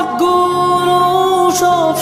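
Bangla rock song playing: a passage of long held notes over a steady accompaniment.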